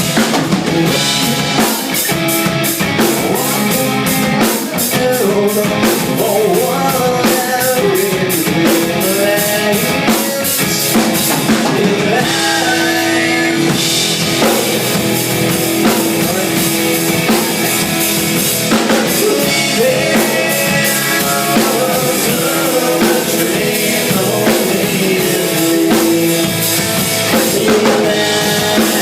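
A rock band playing a song live through the PA at a sound check: drum kit, guitar and a singing voice, continuous and loud.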